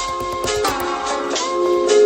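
Background music with plucked guitar notes over held tones.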